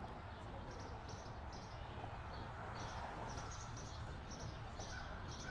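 Faint outdoor ambience: small birds chirping in short, high, repeated notes over a low, steady background hum.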